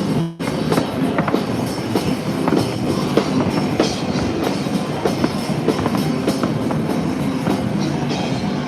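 Fireworks crackling and popping in rapid, irregular succession, over music. The sound cuts out briefly just after the start.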